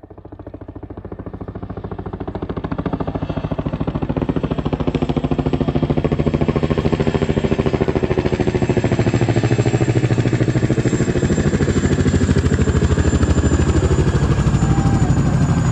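Propeller aircraft's piston engine running with a rapid, even throb, fading in over the first few seconds and then holding steady.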